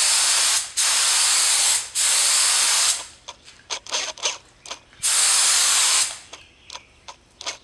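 Harbor Freight Central Pneumatic purple HVLP spray gun spraying water on compressed air set to 40 PSI: a loud hiss in passes of about a second, cut off and started again four times, with short spurts and clicks between about three and five seconds in.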